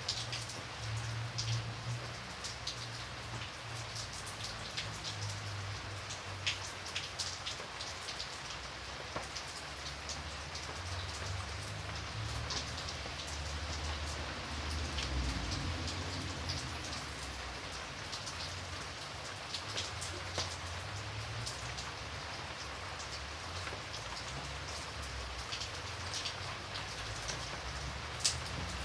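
Light rain falling steadily: an even hiss of rain with many separate drops ticking on a surface, over a low rumble.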